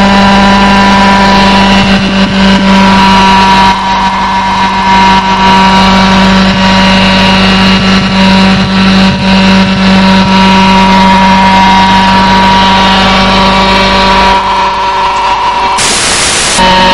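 A loud, steady motor drone with a strong low hum and many overtones, shifting slightly a few times, with a short burst of hiss near the end.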